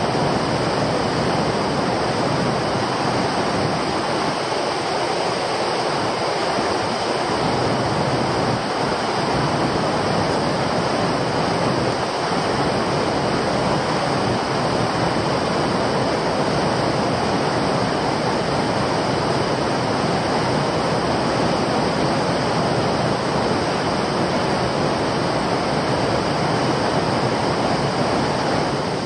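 Fast-flowing stream water rushing steadily over rocks: a loud, even rush with no breaks.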